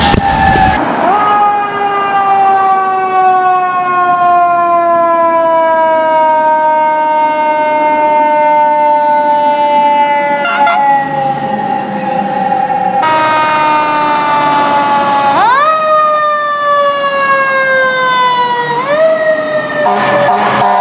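Fire truck siren sounding as the apparatus passes: the pitch rises quickly, then falls slowly over about twelve seconds, and later rises and falls twice more. Near the end a steady blaring tone takes over.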